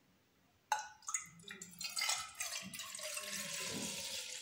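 Milk poured from a plastic measuring jug into an empty glass saucepan, splashing onto the glass bottom and settling into a steady stream over the last couple of seconds. A sharp knock comes about a second in.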